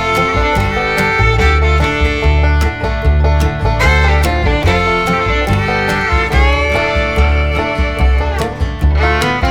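Background music: a fiddle-led string-band tune with plucked strings over a steady beat.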